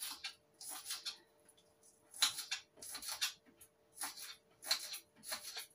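Coriander being chopped with a knife on a cutting board: short, unevenly spaced strokes, roughly three every two seconds. A faint steady hum runs underneath.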